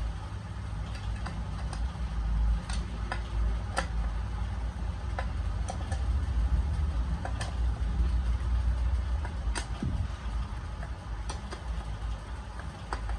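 Scattered sharp metallic clicks and knocks from a hand tool tightening the bolts of a Honda Activa gearbox cover, over a steady low rumble.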